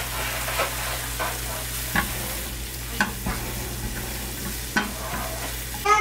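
Rice being stir-fried with ground meat and diced vegetables in a stainless steel pan: a silicone spatula scrapes and taps against the pan over a steady sizzle. A few sharper knocks come about two, three and five seconds in.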